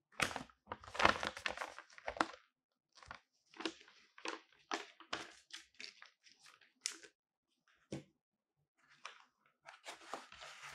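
Paper instruction sheet being folded and handled: crisp rustling and crinkling in irregular bursts, loudest in the first two seconds, then shorter intermittent rustles and handling noises.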